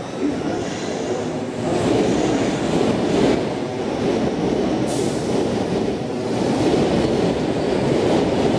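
Osaka subway Chuo Line train running into the station, its wheels and traction motors making a dense, steady noise that swells and eases. There is a sharp click about five seconds in.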